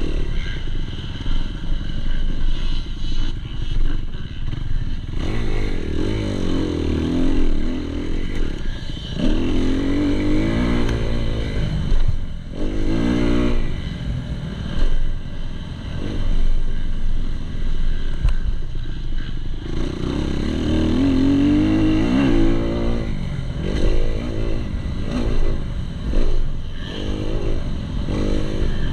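2019 Kawasaki KX250's single-cylinder four-stroke engine ridden on a dirt motocross track, revving up and falling back again and again as the rider accelerates, shifts and rolls off the throttle.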